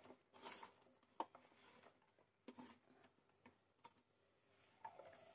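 Near silence with a few faint, scattered taps and clicks: chopped ridge gourd pieces dropping into a nonstick pan.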